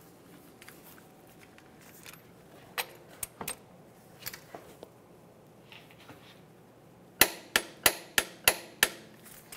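Torque wrench on a crankshaft damper bolt: a few faint clicks as it is fitted, then six sharp metal clicks in quick succession near the end, the wrench clicking at its set torque of 125 ft-lb.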